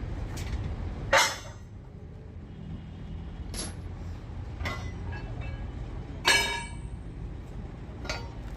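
Steel bulldozer track chain parts clanking, metal on metal: about six sharp clanks with a ringing tail, the two loudest about a second in and just past six seconds, over a steady low rumble.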